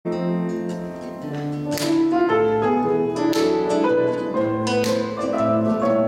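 A grand piano and a small round-bodied plucked string instrument play the instrumental introduction to a song. The piano carries sustained chords and a slow melody, and the strings are plucked in single sharp strokes about every second and a half.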